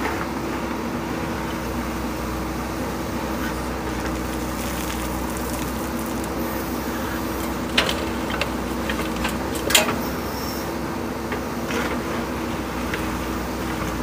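JCB 3DX backhoe loader's diesel engine running steadily while the backhoe works. Sharp knocks about eight and ten seconds in come as the bucket empties mixed ballast into the tipper's bed.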